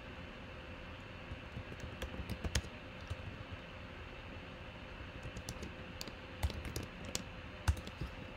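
Typing on a computer keyboard: light keystrokes coming in short, irregular runs.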